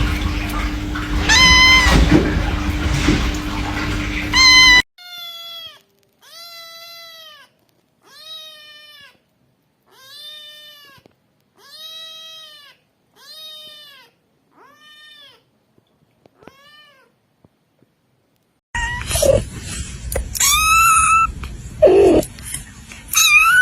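Kittens meowing, high and thin, in three short runs: two meows over background noise, then one kitten's string of about nine evenly spaced meows that grow fainter, then a few more meows over background noise near the end.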